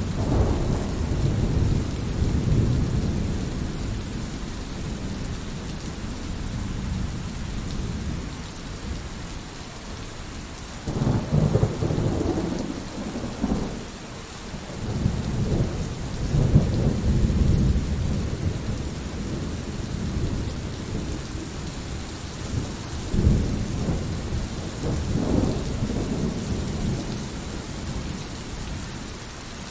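Thunderstorm: steady rain with several rolls of low thunder rumbling over it, the loudest coming about eleven and sixteen seconds in.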